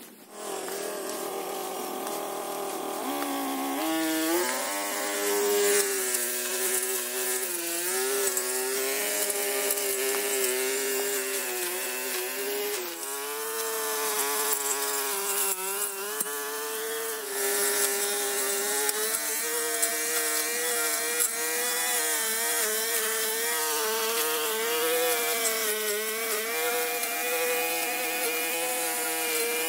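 Small two-stroke engine of a handheld power tool, starting suddenly and rising in pitch about three to four seconds in. It then runs at high revs with a slightly wavering pitch.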